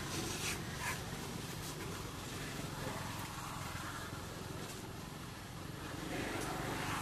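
Steady low rumble of outdoor background noise, with a couple of faint clicks about a second in.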